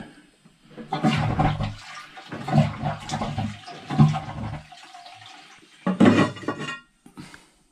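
Close-coupled toilet's flush lever worked several times, water gushing and gurgling in the cistern and bowl in short surges without a proper flush: the fault the plumber puts down to a failed cistern siphon. Near the end comes a louder clatter as the ceramic cistern lid is lifted.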